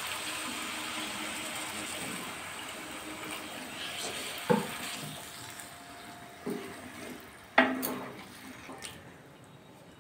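Water poured into a pan of frying young-jackfruit and potato curry, a steady watery hiss that fades over the first few seconds as the water goes into the masala. Then a spatula stirring, knocking sharply against the pan three times, loudest near the end.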